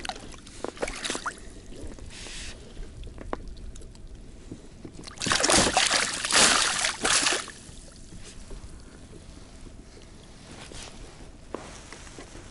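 Pike thrashing in a landing net at the water's surface, a loud burst of splashing about five seconds in that lasts about two seconds. A few light clicks and knocks come before it.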